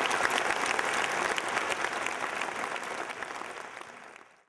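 Audience applauding, dying away and then fading out near the end.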